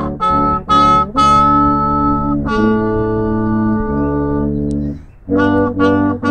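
Instrumental music: a few short chords, then long, held chords, a brief break about five seconds in, and three more short chords near the end.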